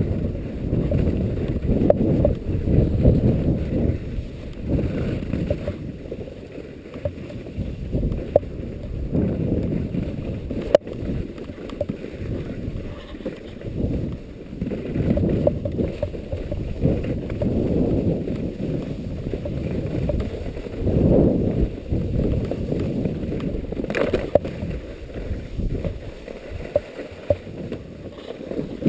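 Strong gusty wind buffeting an action camera's microphone: a deep rumble that swells and fades every second or two, with a few sharp clicks.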